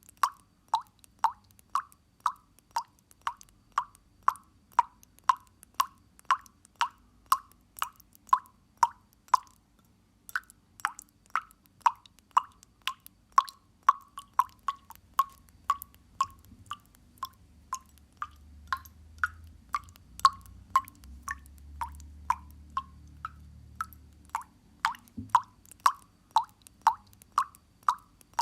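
Water dripping into water in quick, regular drops, about three a second, each a short pitched plop, with a brief pause about ten seconds in. A faint low hum runs underneath.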